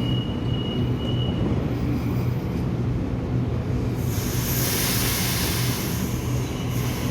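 Electric suburban train at a station platform, running with a steady low rumble and hum. A thin high whine fades out in the first second and a half, and a loud hiss rises about four seconds in and lasts around two seconds.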